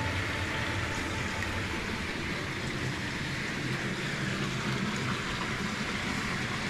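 Steady rush of water flowing along an irrigation canal.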